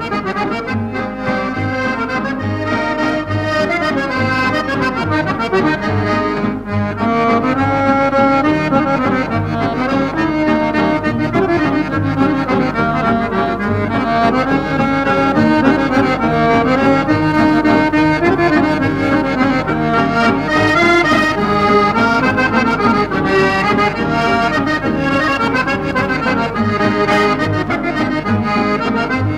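Accordion music with a steady beat.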